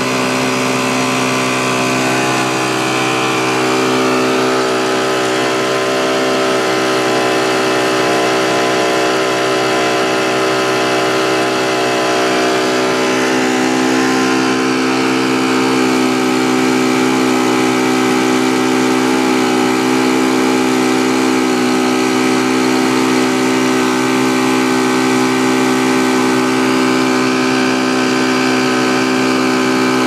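Diesel engine of a ready-mix concrete truck running steadily, with an even, unchanging pitch.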